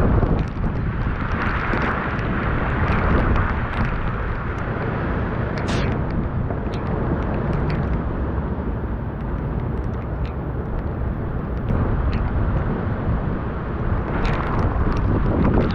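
Tropical-storm wind buffeting the microphone in a loud, constant low rumble, with gusts swelling about a second in and again near the end. Scattered sharp ticks run through it.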